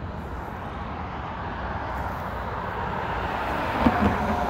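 Interstate highway traffic: a steady rush of tyre and engine noise from passing cars that slowly swells as vehicles come near. A brief thump sounds about four seconds in.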